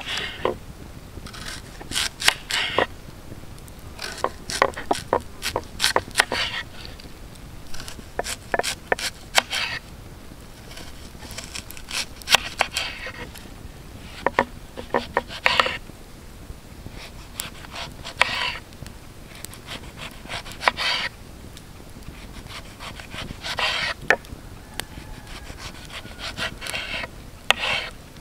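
Knife slicing a lemon on a wooden cutting board: short bursts of cutting strokes and sharp taps of the blade on the board, every couple of seconds.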